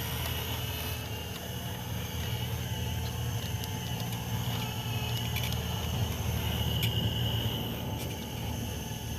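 Radio-controlled construction models running: a steady low motor hum with a faint higher whine and a few scattered clicks.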